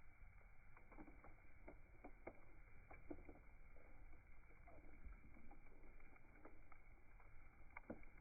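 Bonfire crackling faintly: scattered, irregular sharp pops over a low steady rumble.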